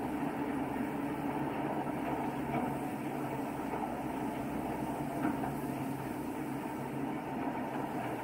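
Pilot launch's engine running steadily under way, with water rushing along the hull.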